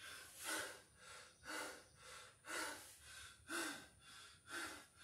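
A man panting hard between burpees, quick breaths about twice a second, winded from a long set of six-count burpees.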